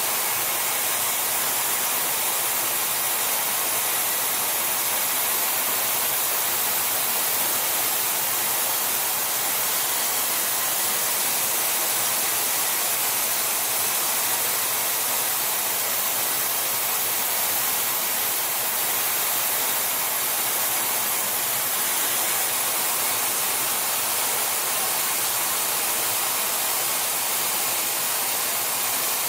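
Metal-spray gun running: a steady, loud hiss of the spray jet as metal is sprayed onto the worn bearing seat of a screw compressor shaft to build it back up.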